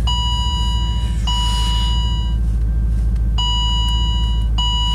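A Pontiac G8's electronic warning chime sounds four times, each a steady beep about a second long, over the low, steady rumble of the car's idling engine.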